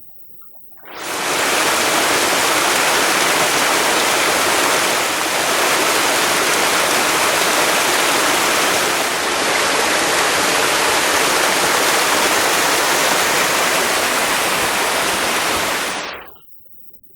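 Water falling down the 22 m Hatchō Falls: a loud, steady rush of water that comes in about a second in and cuts off shortly before the end.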